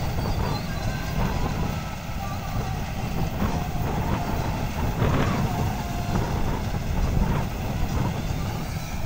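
Tractor-mounted combine harvester running steadily as it cuts and threshes ripe rice: a continuous low engine and machinery noise.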